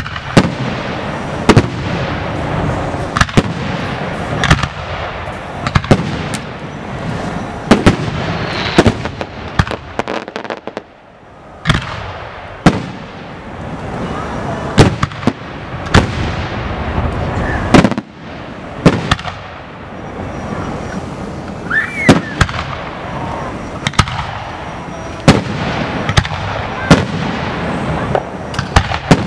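Aerial firework shells bursting in a steady barrage, a sharp bang every second or two, over the sound of crowd voices. The bangs pause briefly about ten seconds in, and a short whistle rises and falls a little after twenty seconds.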